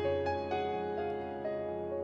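Instrumental background music: a keyboard melody with a new note about every half second over a steady low bass.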